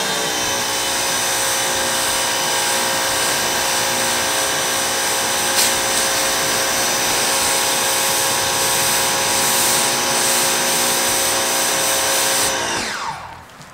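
Pressure washer spraying water onto a car windshield: a steady motor whine with the hiss of the spray. The whine falls away and stops near the end as the trigger is released.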